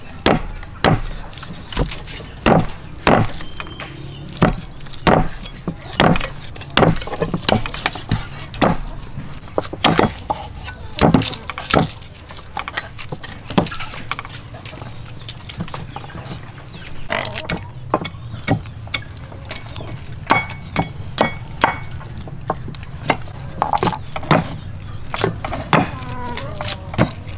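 Knife chopping on a round wooden chopping block: a steady series of sharp knocks, roughly two a second.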